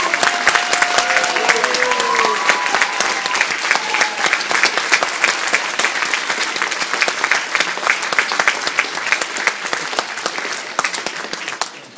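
Theatre audience applauding a curtain call: dense clapping, with a few drawn-out calls from the crowd over it in the first few seconds. The clapping thins and dies away near the end.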